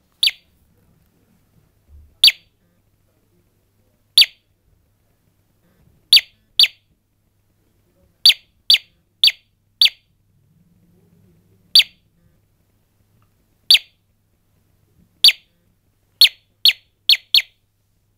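Edge by Expedite Trap Bait digital caller, a battery-powered electronic predator lure, playing short, sharp bird-like chirps. Single chirps come about two seconds apart, broken by quick runs of two and of four. It plays a random mix of its chirp sounds to coax predators into a live trap.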